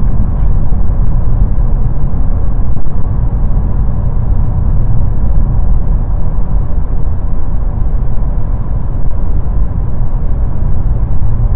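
Steady road and tyre noise inside a car cruising at motorway speed, about 110 km/h: a loud, even low rumble.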